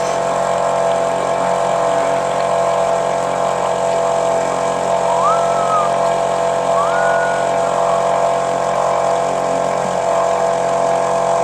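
Small boat's outboard motor running at a steady speed, with two short rising whistles over it about five and seven seconds in.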